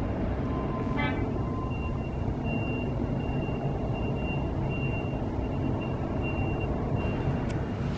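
Harbour ambience: a steady low rumble, with a high, thin electronic beep repeating in short pulses from about two seconds in.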